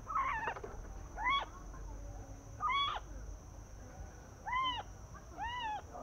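Young green-billed malkohas calling: five short hooting notes, each rising and falling in pitch, about one every second or so.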